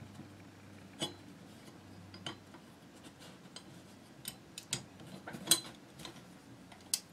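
Scattered sharp metal clicks and clinks of small steel rifle parts being handled and fitted, as the ejector is set back onto the receiver of a Chiappa Little Badger .22 rifle. The loudest click comes about five and a half seconds in.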